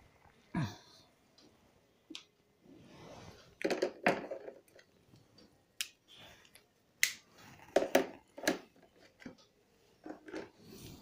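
Whiteboard being wiped with a board duster: irregular short rubbing strokes across the board, with scattered sharp knocks.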